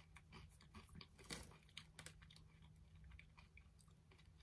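Faint chewing of a crunchy snack in the mouth: irregular crisp crunches, the sharpest about a second and a half in.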